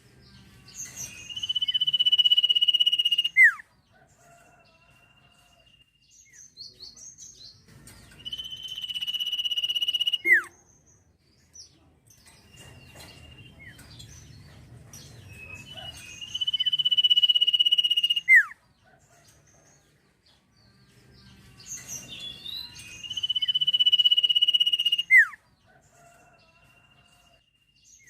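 A sirtu songbird singing four loud phrases, each a high, steady whistle held for about two seconds and ending in a quick downward-sweeping note. Softer chirps fill the gaps between the phrases.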